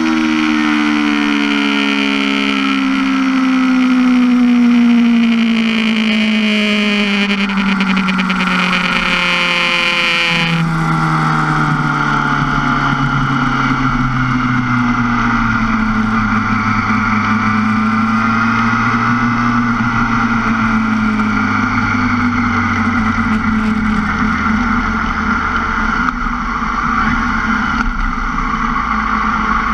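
2005 Yamaha R6's 599 cc inline-four engine winding down off the throttle as the bike slows from high speed: the note falls steadily for about ten seconds under a hiss that stops abruptly. It then runs at low revs with a gently wavering pitch at walking-to-jogging pace, dropping lower again near the end.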